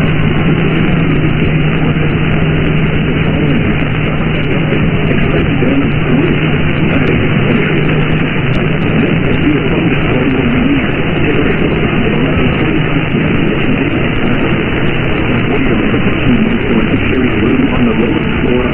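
Radio static: a steady hiss from a radio receiver with no programme audio, with a low hum that fades out a few seconds in.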